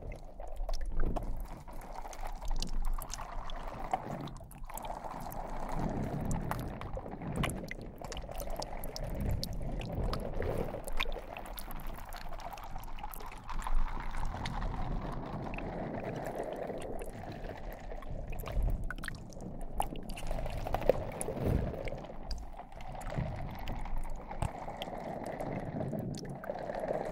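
Slime being squished and kneaded: a continuous, irregular wet squelching with many small pops and clicks.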